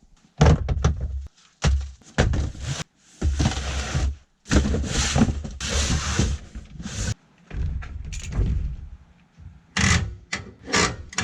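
A run of loud, irregular thumps and rustling scrapes, about a dozen in all: close-up handling noise, things being knocked and moved right by the microphone.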